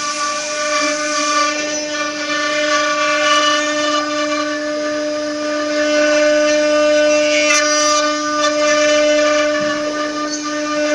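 A multi-spindle 4-axis CNC wood router's electric spindles run with a steady whine as the bits carve wooden furniture legs, with a hiss of cutting noise under the whine.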